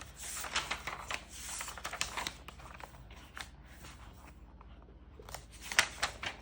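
Paper rustling and a few light clicks as the pages of a picture book are handled and turned, most of the rustling in the first two seconds.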